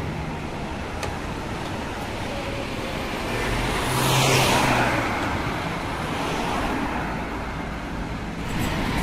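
Street traffic with a Mercedes-Benz Citaro hybrid city bus passing close by, loudest about four seconds in. A car passes near the end.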